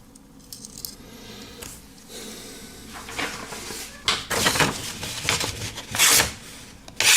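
Pocket knife blade being scraped and drawn across a material to test whether it is sharp: a series of rough scraping strokes, the loudest near the end.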